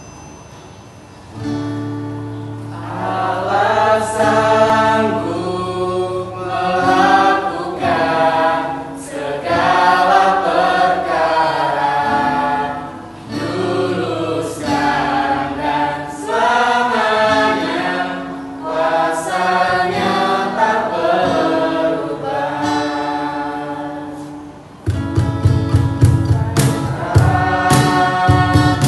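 A small mixed group of singers sings an Indonesian worship song in chorus to acoustic guitar. About 25 seconds in, a cajón beat comes in and the music gets louder.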